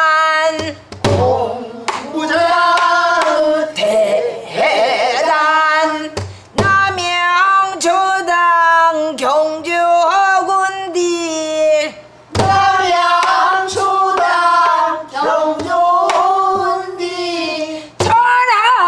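A woman singing pansori: long, gliding, strongly bent sung phrases, with a few sharp strokes on a buk barrel drum marking the beat.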